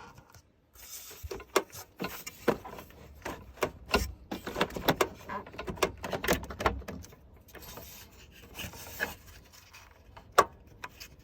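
Irregular plastic clicks, knocks and rubbing as hands work a headlight wiring connector and its retaining clip loose on an Acura Integra, with a sharp knock about ten seconds in.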